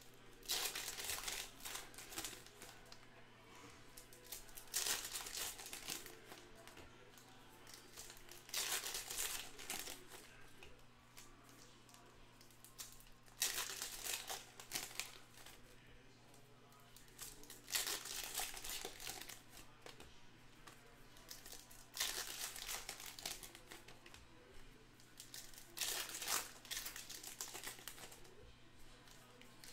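Foil trading-card packs of 2021 Bowman Sapphire being torn open one after another: seven bursts of wrapper crinkling and tearing, about four seconds apart.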